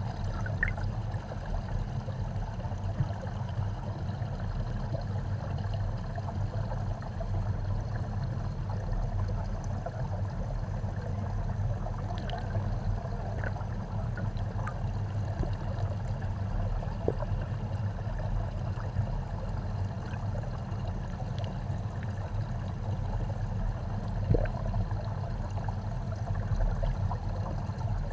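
Aeration bubbles streaming up through a fish tank, heard from underwater: a steady, low rush of bubbling with a few faint ticks.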